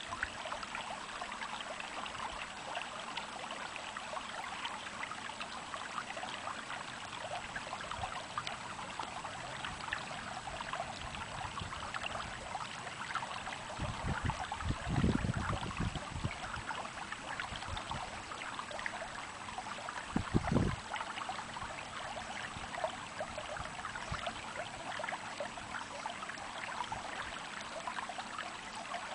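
Small stream babbling and trickling steadily, with many tiny splashes. Low dull bumps break in about halfway through and again a few seconds later.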